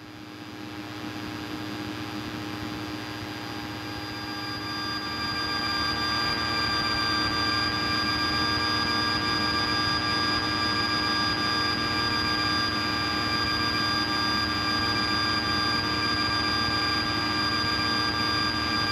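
Piper Cherokee's engine and propeller droning steadily in the cockpit on final approach, with several steady tones running through it. The level swells over the first several seconds, then holds even.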